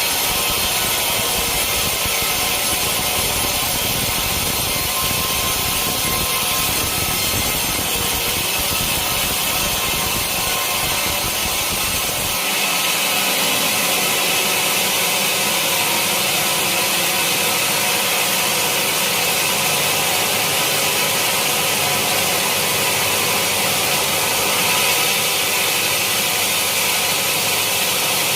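Sawmill saw running through a teak log, a loud, steady cutting noise; about twelve seconds in the low rumble drops away and the cutting sound carries on.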